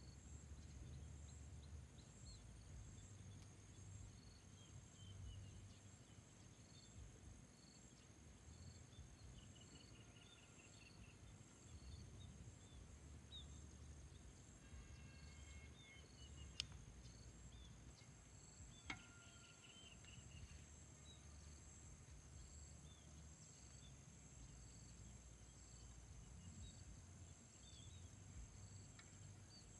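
Faint, steady high-pitched trilling of crickets and other insects, with soft short bird-like calls now and then and a low rumble underneath. Two sharp clicks stand out, one a little past the middle and another about two seconds later.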